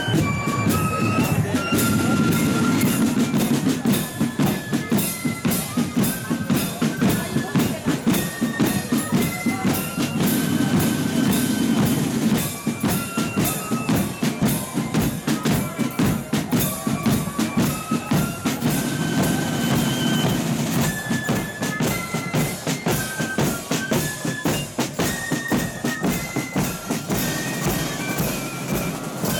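A marching flute band playing: a high, stepping melody on flutes over snare drums and a bass drum keeping a steady march beat.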